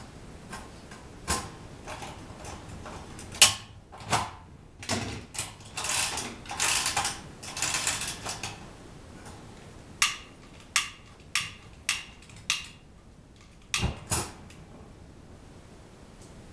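Clicks, knocks and scraping from a convection kerosene heater being handled and lit. There is a sharp click about three and a half seconds in, a stretch of scraping and rustling, then a run of single clicks and two heavier knocks near the end.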